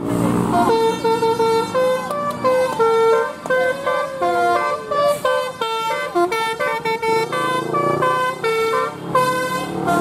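A bus's Basuri 'telolet' multi-tone air horn playing a quick melody: a run of short held notes stepping up and down in pitch, with brief breaks between phrases.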